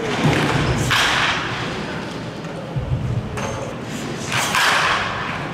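Baseball bat hitting pitched balls, two sharp cracks about three and a half seconds apart, each echoing in a large indoor hall. Duller low thuds come in between.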